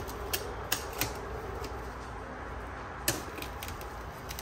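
Sharp clicks and lighter ticks, three close together in the first second and another cluster about three seconds in, as protective foam strips are pulled off the breaker slots of an EcoFlow Smart Home Panel 2.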